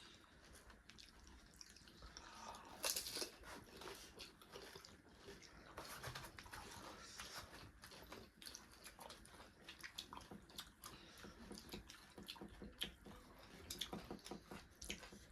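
Faint eating sounds: people chewing and biting food, with many small scattered clicks and crunches.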